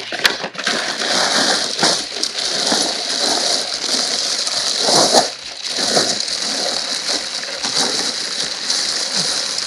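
Clear plastic bag crinkling and rustling as it is handled, with the snow chains inside it. The rustle is continuous and irregular, louder about five seconds in.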